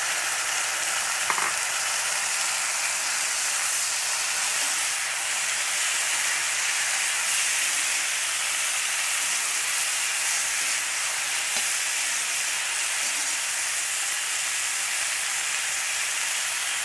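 Parboiled cauliflower florets sizzling in hot oil with fried onions and spices in a cast-iron kadai, a steady frying hiss, while a perforated steel spatula stirs them.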